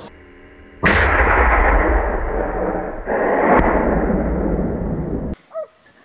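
Two gunshots about two and a half seconds apart, each followed by a long rumbling echo, the sound cutting off suddenly near the end.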